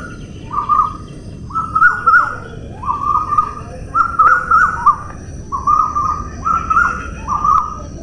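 Songbird singing, repeating short warbled phrases about once a second, with faint, thin high tones held steadily behind it and a low, even hiss underneath.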